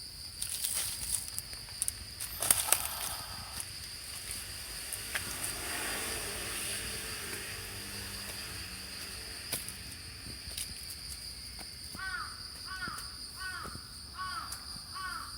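A crow cawing, a run of about six short caws beginning about twelve seconds in, over a steady high-pitched drone.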